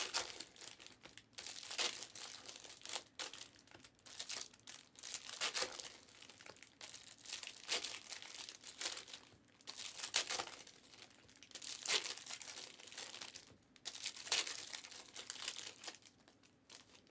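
Foil wrappers of Panini Flux trading-card packs crinkling in the hands as the packs are shuffled and torn open, in irregular bursts of rustling about every second.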